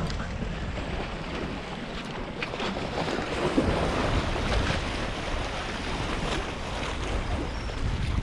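Small sea waves washing and splashing against the boulders of a rock jetty, with wind buffeting the microphone.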